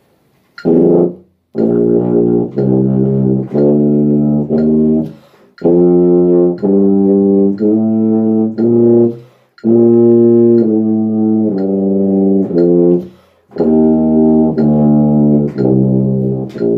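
Tuba playing scale exercises: four phrases of short notes moving step by step, each phrase a few seconds long, with brief gaps for breath between them.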